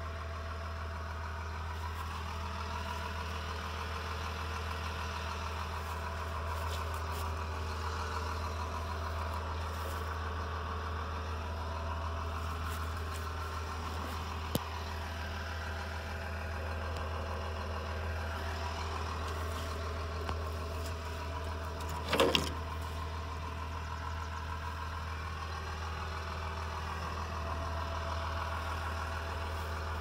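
Kubota L3350 tractor's diesel engine idling steadily. There is a sharp click about halfway through, and a short, louder clatter about three-quarters of the way in.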